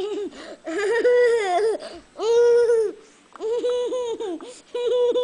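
A young child squealing and laughing in a string of long, high-pitched cries with short breaks between them.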